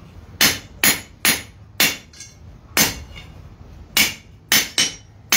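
Blacksmith's hand hammer striking hot square iron bar on an anvil, forging a curl: about eight sharp blows at an uneven pace with a longer gap in the middle, each ringing briefly.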